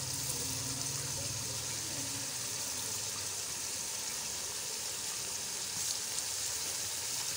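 Mutton frying in ghee in a pot: a steady sizzling hiss while shredded cabbage is dropped in on top.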